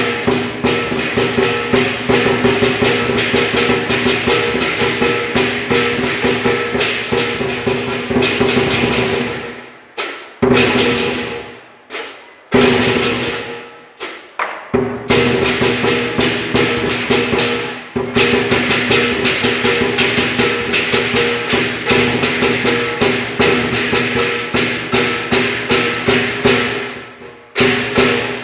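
Lion dance percussion: a large Chinese drum beaten in a fast, dense beat with clashing cymbals ringing over it. It breaks off about ten seconds in, leaving a couple of lone strikes, then the fast beat resumes.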